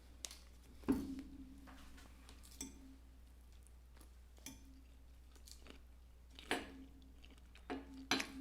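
People chewing a mouthful of salad and shrimp, with about seven scattered soft clicks and taps.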